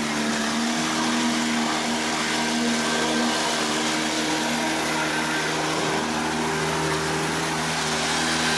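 Small tiller-steered outboard motor running steadily with the boat under way, an even hum of stacked tones over a rush of water and wind noise.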